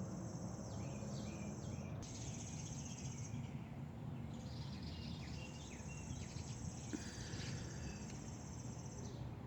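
Wild birds chirping and calling in short notes, over a high buzzing trill that breaks off for a few seconds mid-way and returns about seven seconds in. A steady low rumble runs underneath.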